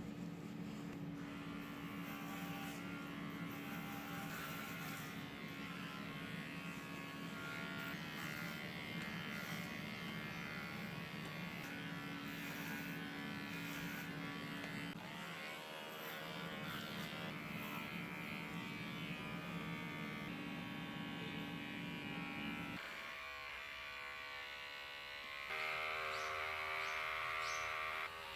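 Electric pet hair clippers buzzing steadily while trimming a dog's coat. About 23 seconds in the hum changes, and a couple of seconds later it becomes louder at a different pitch.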